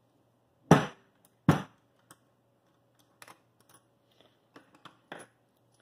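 Tools and mount parts handled on a workbench: two sharp knocks about a second in, then a string of lighter clicks as a T-handle hex key is set down and the worm gear housing is picked up.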